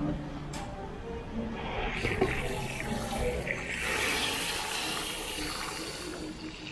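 Water running from the tap of a salon shampoo basin into the sink, building up about a second and a half in.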